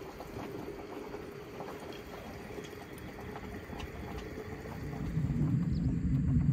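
Soft fizzing and small pops of bubbles rising in a glass jar of strawberries, sugar and freshly poured water. A louder low rumble comes in about five seconds in.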